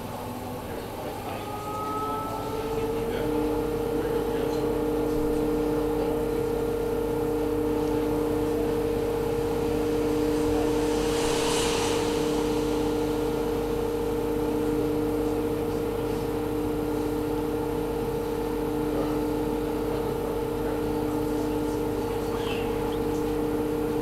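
Whirlpool Supreme Care washing machine in demo mode, its drum speeding up into a spin: the motor whine rises in pitch over the first few seconds, then holds at a steady pitch as the drum spins at speed. A brief hiss about halfway through.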